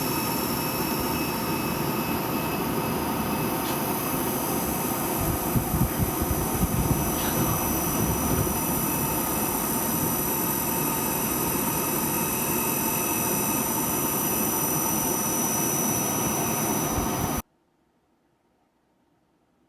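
Dyson Pure Hot+Cool HP04 fan running, its airflow hiss overlaid by a steady, high-pitched mosquito-like whine in several thin tones. The whine is an abnormal noise from the unit. It cuts off suddenly near the end.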